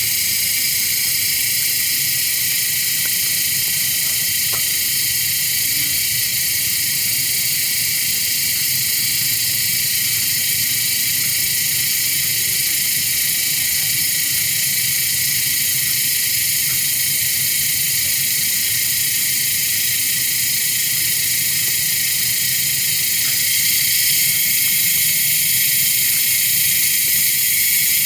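Steady, loud chorus of cicadas: a dense high buzz that rises slightly in level about 24 seconds in.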